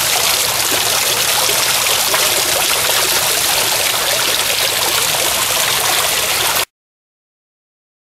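Water splashing down an ice-crusted vertical fake-rock garden waterfall, a steady rush of falling water that cuts off suddenly near the end.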